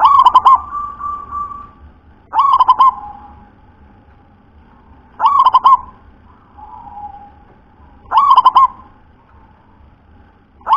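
Zebra dove (perkutut) singing: four cooing calls about every two and a half to three seconds. Each is a quick run of rolling notes followed by a softer, drawn-out coo.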